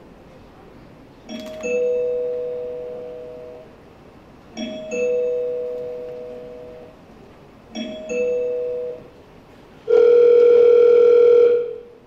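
Two-tone ding-dong doorbell chime rung three times a few seconds apart, each a higher note dropping to a lower one and fading away. Then a loud, steady buzzing ring for about two seconds that cuts off suddenly.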